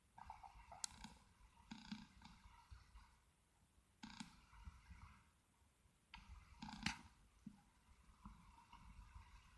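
Very faint handling noise: a few soft rustles and light clicks, the sharpest about a second in and again near seven seconds.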